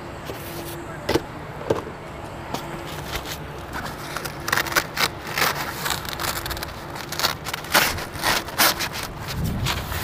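Padded nylon shelf partition inside an insulated delivery backpack being pulled and shifted by hand: irregular rustling, scraping and crackling of the fabric, busiest in the middle of the stretch.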